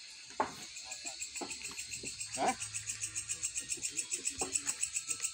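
Night insects, crickets, chirping steadily in a fast even pulse, about five chirps a second, over a constant high whine. A few short knocks from the timber being handled come in the first half.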